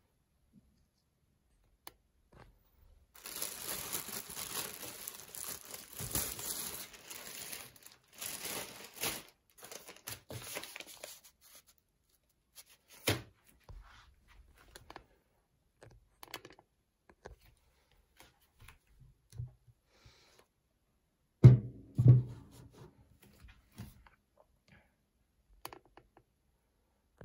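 Unboxing of studio monitors: plastic wrapping crinkling and tearing for several seconds, followed by scattered small handling knocks and two heavy low thuds about two-thirds of the way through, as of something set down or bumped.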